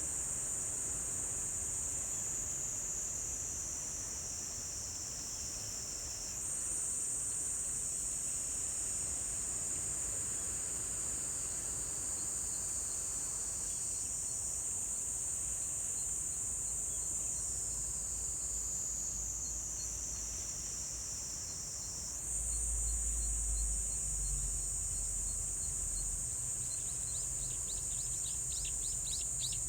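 A chorus of insects singing in a continuous high-pitched trill. The sound steps up and down in pitch a few times, and a quick run of short chirps joins in near the end.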